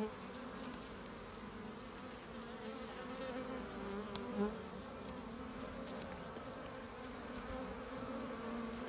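Honeybees buzzing in a steady drone that wavers slightly in pitch.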